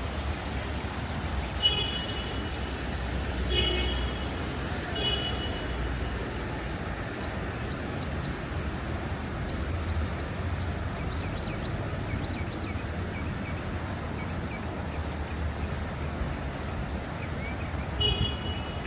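Street ambience in the rain: a steady hiss over a low rumble of traffic, broken by short high chirps three times in the first five seconds and once more near the end.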